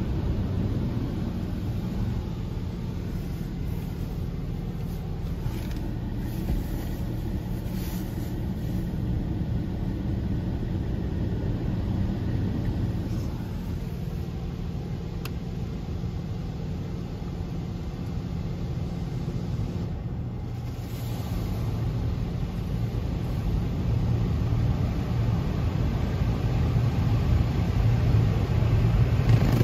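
Mark VII soft-touch car wash heard from inside the car's cabin: a steady, muffled low rumble of the machine's brushes and water spray working over the car. It grows louder over the last few seconds.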